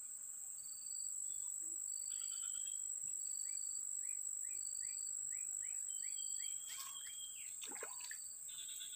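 Steady high-pitched insect drone, with short high beeps about once a second and, midway, a bird calling in a quick run of about ten short repeated chirps, roughly three a second. A few faint brief rustles and clicks near the end.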